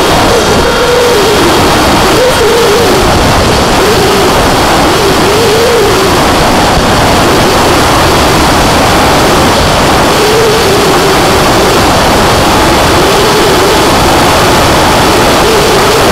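Onboard sound of a Skyfun RC foam plane in flight: its electric motor and propeller whine, the pitch rising and falling over and over as the throttle changes, under loud, steady rushing wind noise on the plane-mounted camera's microphone.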